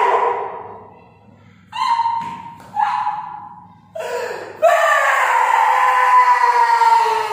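A performer's high-pitched screams in character: two short cries about two and three seconds in, a brief one about four seconds in, then a long loud wail from about five seconds in that slowly falls in pitch.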